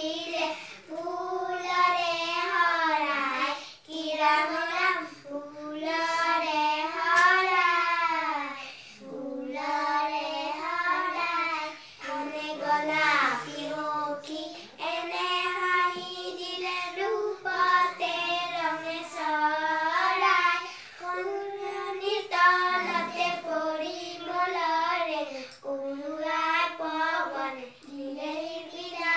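Three young girls singing an Assamese poem together in unison, unaccompanied, in phrases of a few seconds each with short breaths between.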